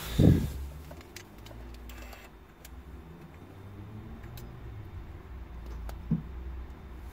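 Faint clicks as the power push-button of a 2019 Hyundai Ioniq Electric is pressed, over a low rumble of phone-handling noise, with a loud knock just after the start and a smaller one about six seconds in. There is no chime or motor sound.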